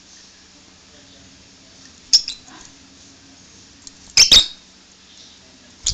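Lovebird giving short, sharp, loud chirps: one about two seconds in, a quick double a little after four seconds, and another at the very end.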